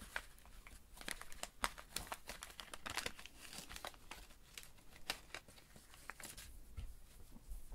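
Paper wrapper of a trading card pack crinkling and rustling as gloved hands pull the cards out of it: a quick run of small crackles that thins out after about six seconds.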